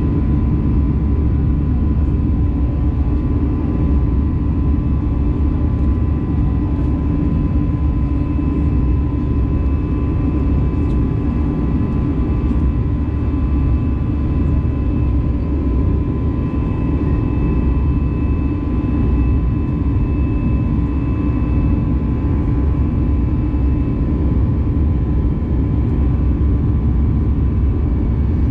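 Steady cabin noise inside an Airbus A320 climbing after takeoff: the wing-mounted jet engine at climb power, a low drone with a few faint steady whining tones above it.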